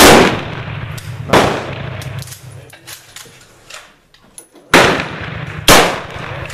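Four gunshots from a .44 Pietta 1851 Navy black-powder cap-and-ball revolver. The loudest comes at the very start, the next about a second and a half later, then two more close together near the end, each with a decaying echo. A steady low hum sits underneath.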